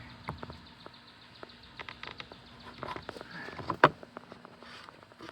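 Handling noise from working a homemade wire-splitting block: scattered light clicks and taps, with one sharp knock a little before four seconds in.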